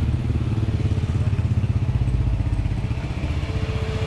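A motor vehicle engine running close by, steady and low with rapid, even firing pulses.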